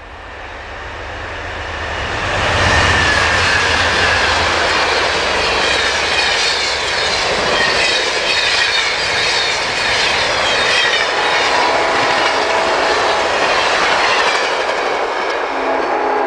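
Amtrak passenger train going by at high speed: the sound builds over the first couple of seconds with a low rumble from the locomotive, then the cars pass with a steady loud rush of wheels on rail and wind. Near the end a train horn starts sounding a steady chord.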